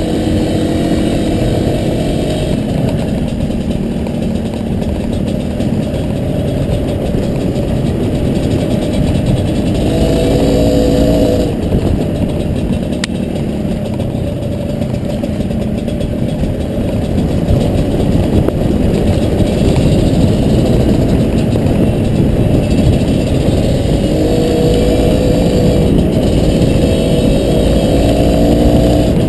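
Honda CRM250RM two-stroke single-cylinder dirt bike engine running under varying throttle. Its pitch climbs about ten seconds in and again near the end.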